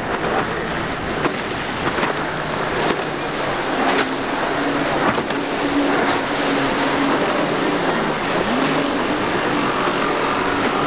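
Motorboat engines running over the noise of waves and wind, with one engine tone held for a few seconds in the middle that then slides in pitch, and a few short knocks.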